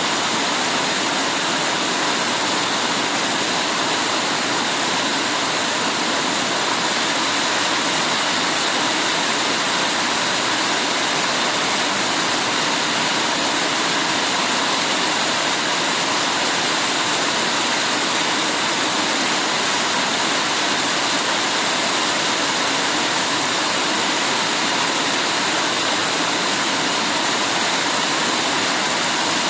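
Heavy rain falling steadily, a dense even hiss with no single drops or splashes standing out.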